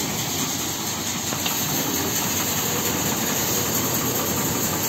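Grain conveyor elevator running steadily while it loads grain into a tractor trolley. Its motor hums under a continuous hiss of grain.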